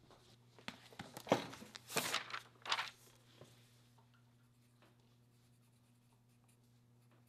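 Pencil scratching on paper in a handful of short, quick strokes during the first half, over a faint steady low hum of room tone.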